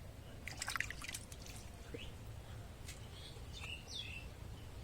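Birds chirping in the background, a few short calls over a low steady rumble of ambient noise, with a quick cluster of sharp clicks about half a second in.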